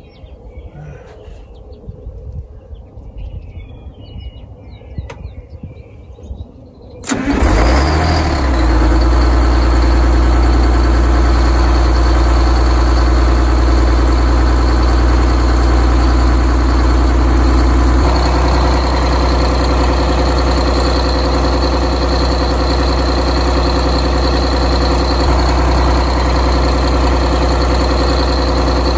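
Detroit Diesel 6V92 two-stroke V6 diesel catching and firing up suddenly about seven seconds in, then running steadily at idle. The engine is starting after an oil-system repair, with its drained oil cooler, filter and lines being refilled. Its sound eases slightly about eleven seconds after it fires.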